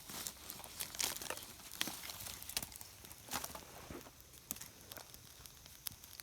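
Small campfire of wet brushwood crackling, with irregular sharp snaps and pops spaced unevenly, a few louder ones standing out; the wood is damp and burning poorly.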